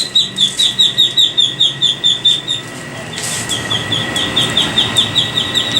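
Baby duckling peeping loudly and rapidly in distress, a fast string of short, high, falling peeps about six a second, with a brief pause near the middle.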